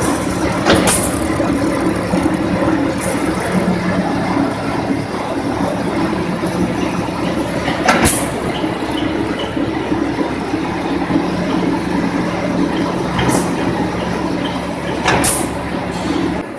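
GT2-6 wire straightening and cutting machine running with a steady motor hum as wire feeds through its straightening rotor. About four sharp clacks come a few seconds apart, the cutter shearing off lengths of straightened wire.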